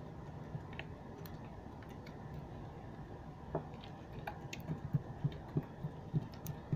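Blue slime being poked and squished by fingers, giving faint sticky clicks and small pops, more of them in the second half.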